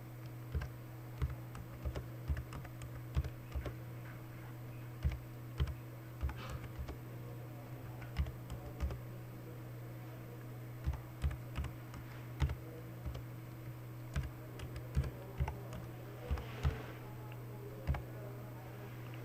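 Typing on a computer keyboard: irregular runs of keystrokes with a few short pauses, over a steady low hum.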